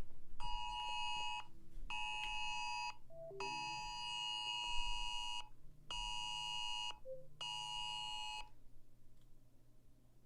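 Emergency alert attention signal: a harsh, steady two-tone blare sounding in a long-short-short pattern, played twice through, that cuts off about eight and a half seconds in.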